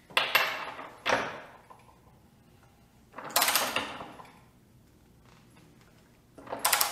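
Metal knocks as a socket wrench is fitted onto a nut, then bursts of ratchet clicking as the nut is turned by hand with a torque wrench: a short run a little after three seconds in and a quicker run of clicks near the end.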